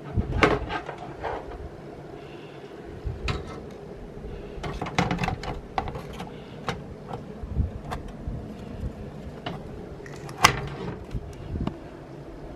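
Scattered clicks, taps and knocks of computer hardware being handled and fitted during a PC build, over a steady low hum, with a sharper knock about half a second in and another near ten and a half seconds.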